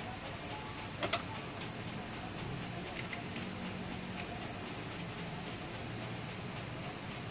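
Light clicks and taps of hands setting chopped vegetables into scallop shells on a metal baking tray, over a steady hiss. The sharpest pair of clicks comes about a second in, with a few fainter ticks later.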